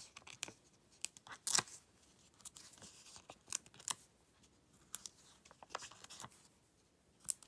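Stampin' Dimensionals foam adhesive pieces being peeled from their backing sheet and pressed onto the back of a cardstock panel. The result is scattered, faint, short clicks and paper crackles, the sharpest about one and a half seconds in.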